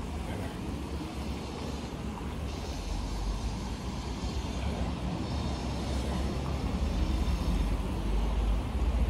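Steady rumble of road traffic, gradually growing louder.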